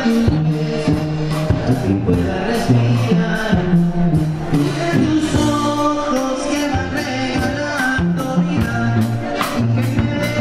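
Live Mexican regional band music: a sousaphone playing the bass line under a drum kit's steady beat, with a melody line above.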